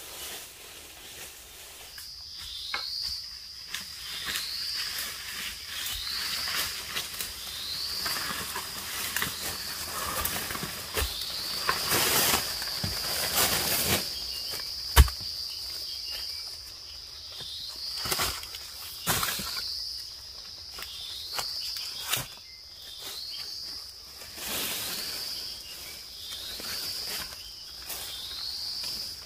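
An insect calling in a steady high buzz that starts about two seconds in, each phrase entered by a short rising sweep, repeating every second or two. Footsteps and rustling in dry bamboo leaf litter, with scattered knocks, the sharpest about halfway through.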